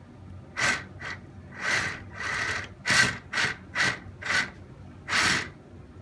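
The electric motors and plastic tracks of a Kyosho Blizzard RC snowcat run in about nine short bursts as the transmitter stick is worked, each burst a brief scraping rush. This is a test of a newly installed Sabertooth 2x12 dual-motor ESC.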